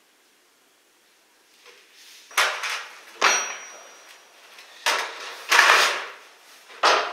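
Workshop clatter of tools and parts being handled: five loud knocks and clanks about a second apart, one leaving a brief metallic ring.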